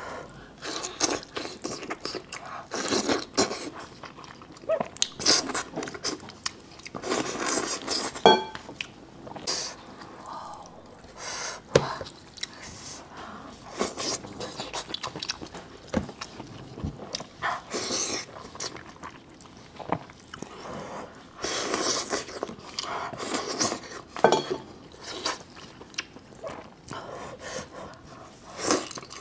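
Close-miked chewing and wet mouth sounds of someone eating braised sheep's head meat, with sticky handling noises and occasional sharp clicks as the meat is pulled off the bones by hand.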